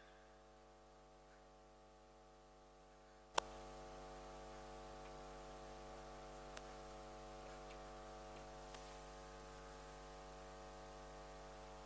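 Near silence, then a single click about three and a half seconds in, after which a faint, steady electrical mains hum sets in.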